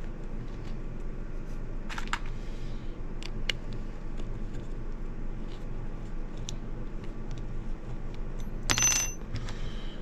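Light clicks and taps of small M3 screws and nuts being fitted by hand into a plastic switch housing, with a short, bright metallic clink just before the end.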